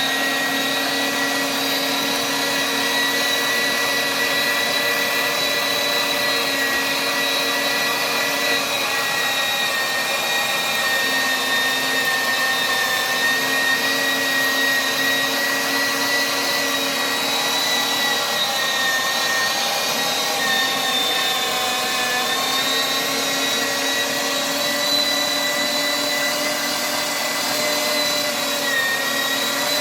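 Electric home meat grinder running, grinding diced beef: a loud, steady motor whine that sags slightly in pitch a couple of times as the meat loads the motor.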